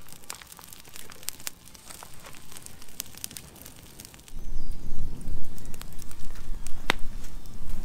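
Newly lit campfire of birch bark and dry twigs crackling, with scattered sharp pops. About four seconds in, a loud, uneven low rumble joins the crackling and stays.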